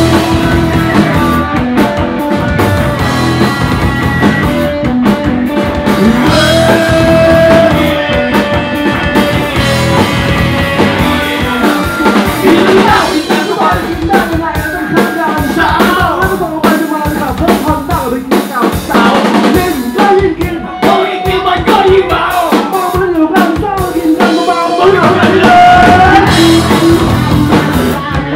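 Rock band playing live: electric guitars, bass and drum kit, with a male singer singing into a microphone.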